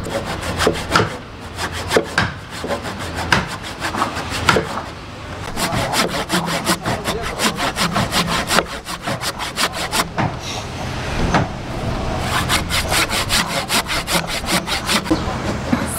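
Handsaw cutting back and forth through the seam of a joint between two clamped wooden keel timbers, in quick strokes with a few short pauses. The saw is run through the joint to shave both faces down so they close wood on wood with no gap.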